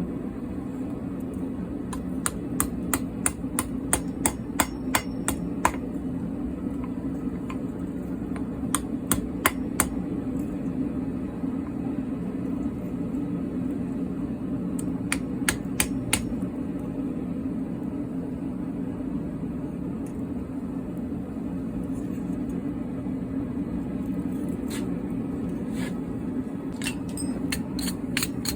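Blacksmith's hammer striking metal on an anvil while forging, in short runs of ringing blows, about three a second, with pauses between runs, over a steady low hum.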